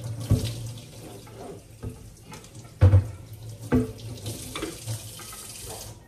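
Kitchen faucet running as a wooden cutting board is rinsed under it in the sink, with three loud knocks as the board is handled. The water shuts off near the end.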